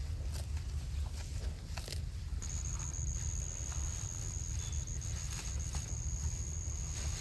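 A herd of cattle walking, with scattered light hoof clicks over a steady low rumble. A thin, steady high-pitched tone starts about two and a half seconds in and carries on; no mooing.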